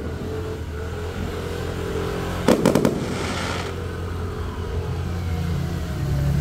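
Fireworks cake shells bursting in the distance: a quick cluster of four or five sharp bangs about two and a half seconds in, followed by a short crackling hiss, over a steady low hum.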